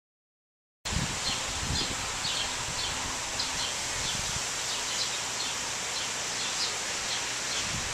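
Outdoor ambience that starts abruptly after a second of silence: a steady hiss of wind in the trees with small birds chirping repeatedly over it, and wind buffeting the microphone in low gusts near the start and the end.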